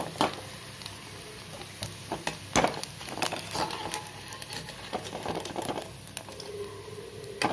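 Sun-dried rice vadagam deep-frying in hot oil: a steady sizzle with scattered sharp crackles and pops.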